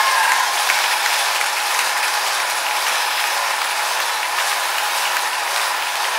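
Indoor bike trainer whirring steadily as a fixed-gear track bike is pedalled at a constant pace.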